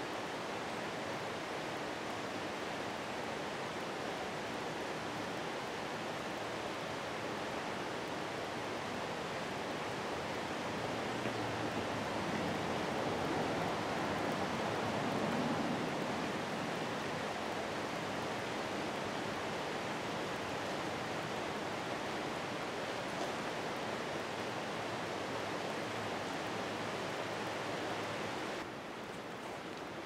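Steady outdoor ambient noise: an even rushing hiss with no distinct events. It drops and thins suddenly near the end.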